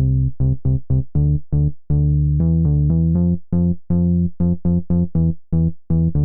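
Background music: a run of short, detached pitched notes in a quick, uneven rhythm.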